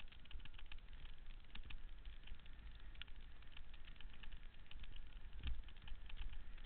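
Wind buffeting the microphone of a bicycle-mounted camera on a fast mountain descent: a steady, uneven low rumble, with many small irregular clicks and rattles over it.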